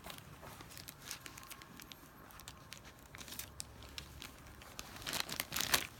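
Plastic toy packaging crinkling and tearing as it is opened by hand, with a louder, denser flurry of crackling near the end.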